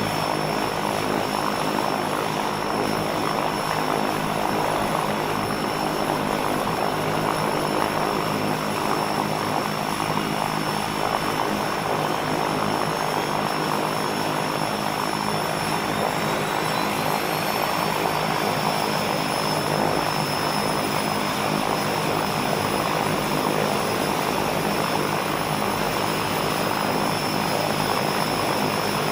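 Propeller aircraft's piston engine running steadily, with no change in level.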